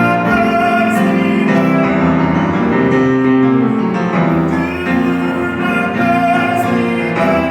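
Piano playing with voices singing along.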